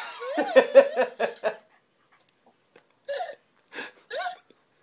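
Laughter in quick, evenly spaced pulses for about a second and a half, then a few short laughing or voice sounds near the end.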